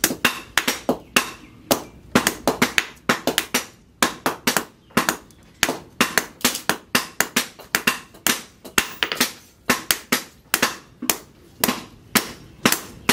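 A hand hammer strikes a red-hot sickle blade, forged from tractor plough steel, on a steel post anvil. The blows come fast, about four a second, with a couple of brief pauses, as the blade is shaped.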